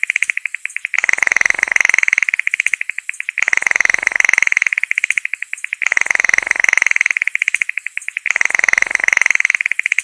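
Animal call: a series of trills made of rapid, even pulses. Each trill lasts about two seconds, with a short pause between them, and they come four times over.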